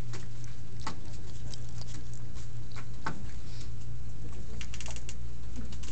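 Steady low hum with irregular light clicks and taps scattered over it.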